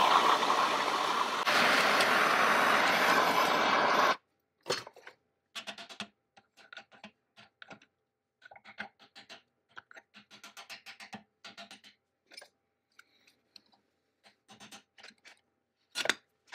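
Hand-held gas torch burning with a steady roar as it heats a steel collar on a threaded rod, shut off abruptly about four seconds in. After that come faint scattered clicks and small scrapes of metal parts being handled, and near the end a sharp clank as a pliers-wrench grips the toothed rack.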